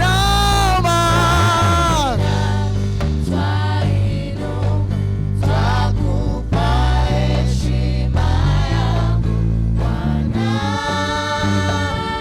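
Live gospel worship music from a church praise band, with a steady bass line and guitar throughout. Singers hold long sung notes at the start, then the band plays on alone until the voices come back in near the end.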